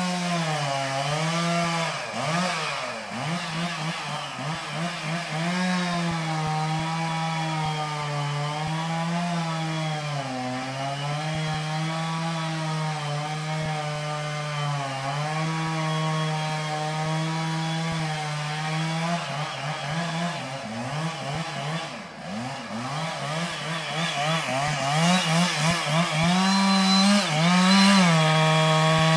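Two-stroke chainsaw running at high revs, its pitch sagging and picking up again several times as it works; it gets louder over the last few seconds.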